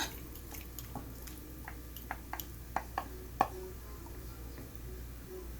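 Cooked potatoes, carrots and zucchini being mashed into small pieces: a utensil knocks and clicks against the dish about ten times over the first three and a half seconds, then it goes quieter.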